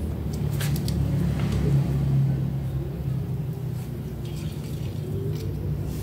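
A low, steady motor rumble, with a few faint clicks.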